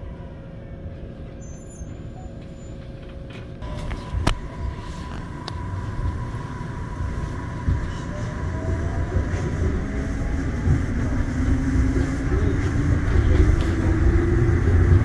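Daegu Metro Line 3 rubber-tyred monorail train pulling away from the station, heard from inside the car. A low rumble grows steadily louder as it gathers speed, with a drive-motor whine that climbs slowly in pitch.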